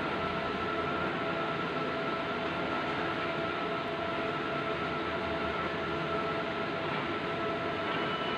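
Bluewin large-format outdoor digital printer running: a steady mechanical whir with a constant hum tone and no breaks.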